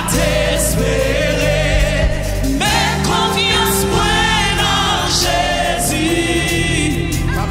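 Live gospel worship music: a band with drum kit and electric bass guitar playing under several voices singing a Haitian Creole hymn.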